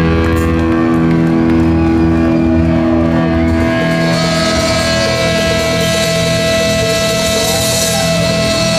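Live heavy metal band's electric guitar and bass holding long, sustained ringing notes through the amplifiers, with a few short pitch glides; the held notes change about four seconds in.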